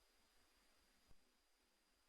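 Near silence between calls, with one faint tick about halfway through.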